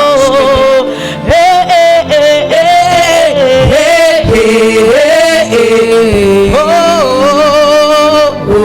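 Gospel song with a male singer holding long, wavering notes that step up and down in pitch, without clear words, over a steady instrumental backing.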